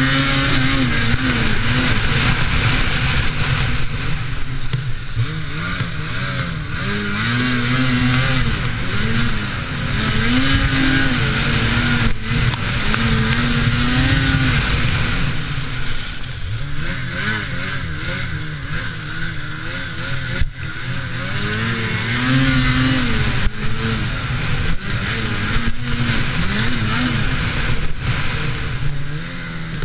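Lynx Rave RE 850 E-TEC snowmobile's two-stroke twin engine under way, its pitch rising and falling again and again as the throttle is opened and eased, over steady track and wind noise. Heard from a helmet-mounted camera.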